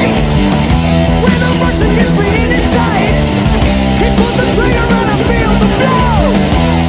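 Loud background rock music with distorted guitars and a steady full mix, with some singing.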